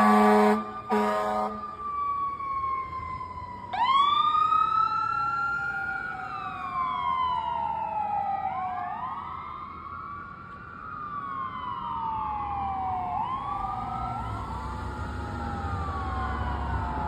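Fire truck air horn honking in short blasts that stop about a second and a half in, then sirens wailing, each sweep rising fast and falling slowly, several overlapping. A low engine rumble grows near the end.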